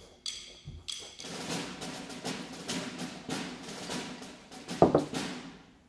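Background music with a quick, steady tapping percussion beat over held tones, and one louder hit about five seconds in.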